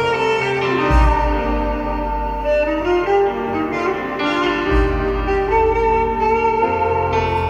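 Live instrumental music: a kamancheh, bowed, carrying a held, gliding melody over keyboard chords and deep bass notes that come in about a second in and again past the middle.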